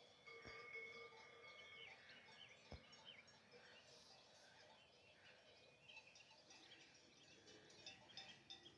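Faint birdsong: several small birds chirping and whistling in short notes, with one longer held note near the start. Two soft knocks, one about half a second in and one near three seconds.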